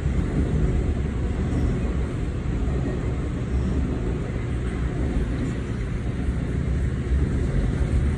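Freight train of intermodal spine cars rolling past: a steady low rumble of steel wheels on the rails.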